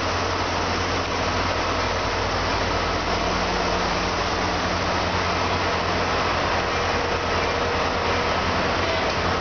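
EMD SD70 diesel-electric locomotive's 16-cylinder two-stroke engine running with a steady low drone as the passenger train rolls slowly past at under 15 km/h.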